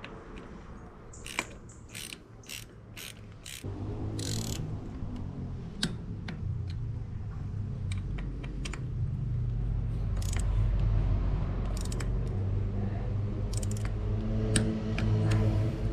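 A mountain bike's rear wheel spun on the stand: a few clicks, then from about four seconds in a steady ratcheting whirr from the freehub and drivetrain that slowly grows louder. The freshly fitted disc brake pads rub a little on the rotor, which should wear off once they are bedded in.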